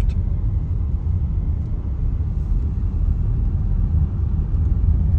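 Steady low rumble of a car in motion heard from inside the cabin: engine and tyre noise with no distinct events.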